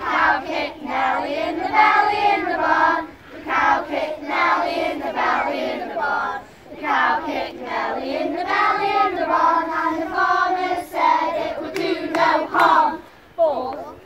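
A group of young children singing a campfire song together in unison, unaccompanied, in phrases with short pauses between them.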